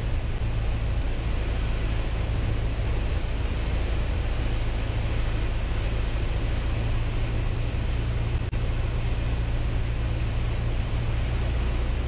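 Piper Cherokee 180's four-cylinder Lycoming O-360 engine and propeller droning steadily in flight, heard from inside the cabin.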